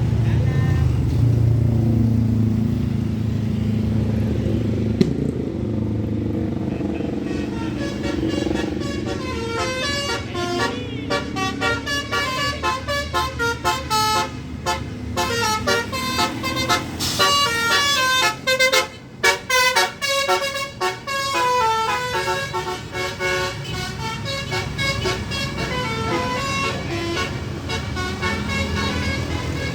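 A bus engine running low, then from about eight seconds in a telolet basuri horn, a bus's multi-trumpet air horn, plays a quick melody of short notes that keeps changing pitch.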